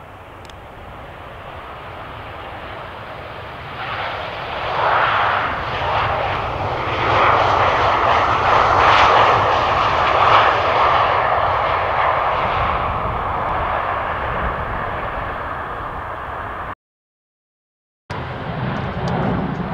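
Boeing 737-800's CFM56-7B jet engines passing close by: the sound swells over a few seconds, stays loudest for several seconds, then slowly fades. Near the end it cuts off abruptly for about a second, and a lower, steadier engine hum follows.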